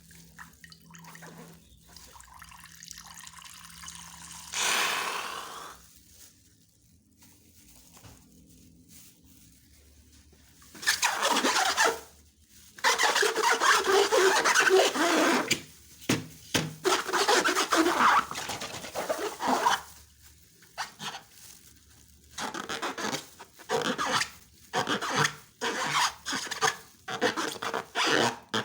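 Slime being worked: wet, sticky rubbing and squelching. It is quiet at first with one short hiss, then runs on densely for several seconds, and near the end comes as many short squelches in quick succession.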